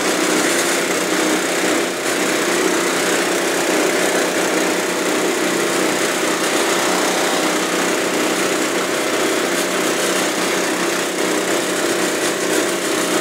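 A diesel UTV and the small gasoline engine that drives its sprayer pump running steadily, a constant hum while the vehicle moves slowly through grass.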